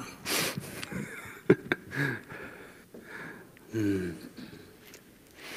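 Quiet room sound with a few light clicks and knocks as acoustic guitars are set down, and a short low murmur of a man's voice about four seconds in.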